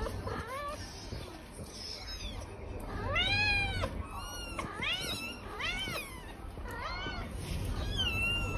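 A kitten meowing over and over: a string of short, high cries, each rising and then falling in pitch. The loudest comes about three seconds in.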